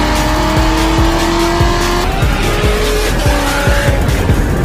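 A car engine accelerating hard, its pitch climbing and dropping back at a gear change about two seconds in, then climbing again, over music with a steady beat.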